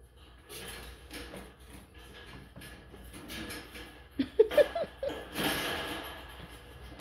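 Light metal clicking and scraping as the screwed bottom bar of a wire dog crate is worked loose by hand. About four seconds in come a few short, loud, squeaky sounds, followed by a denser rattle and rustle.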